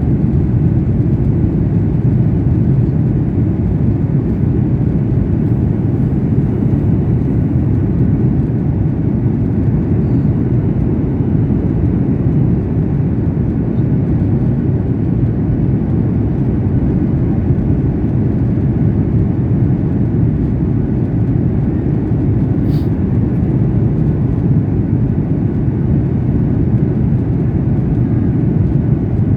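Airliner cabin noise on the approach to landing: a steady low rumble of the jet engines and rushing air.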